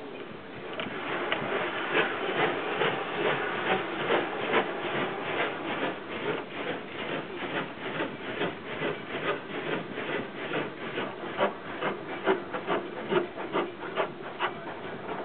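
Rotating car-wash brushes slapping and rubbing against the car's body and glass in rapid, irregular strokes, heard from inside the car. The strokes start about a second in.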